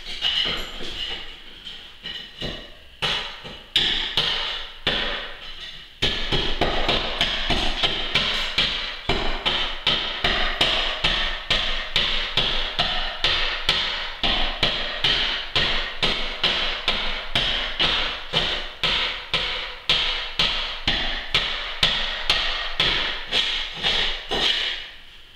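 Hand hammer striking in quick, slightly uneven taps, a few at first and then about three a second from around six seconds in until just before the end.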